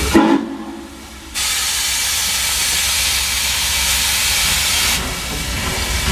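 Norfolk & Western Class J 611 steam locomotive releasing steam in a loud, steady hiss that starts suddenly about a second in, over a low rumble.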